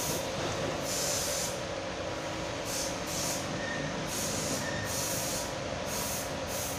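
Steady mechanical hum with short hissing bursts recurring every second or so, typical of running workshop machinery.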